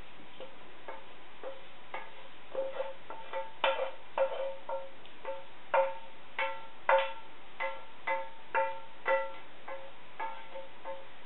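Background music of short plucked-string notes, repeating on a few pitches, at first about two a second and then faster.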